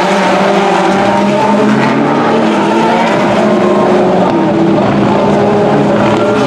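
Several World Rallycross Supercars racing, their turbocharged four-cylinder engines revving up and down, more than one engine note overlapping at once.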